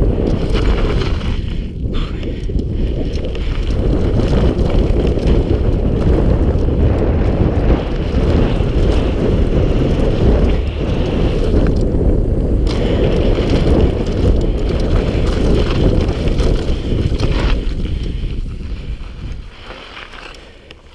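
Heavy wind buffeting on a mountain-bike camera's microphone during a fast descent, with the tyres crunching over dirt and gravel and the bike rattling over bumps. The noise dies down over the last few seconds.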